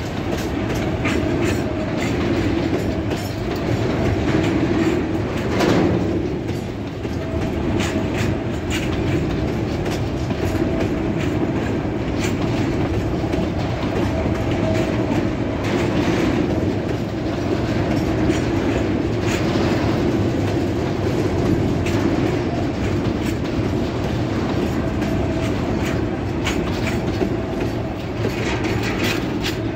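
Loaded freight hopper wagons rolling past close by: a continuous heavy rumble of steel wheels on rail, with repeated clacks over the rail joints and a faint ringing tone that comes and goes.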